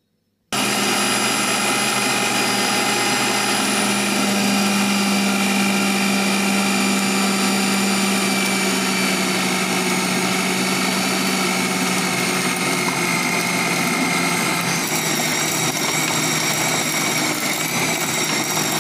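Electric food processor motor running steadily while it kneads flour, fenugreek leaves, oil and water into paratha dough. It starts about half a second in, its whine shifts slightly in pitch a few seconds before the end, and it cuts off suddenly.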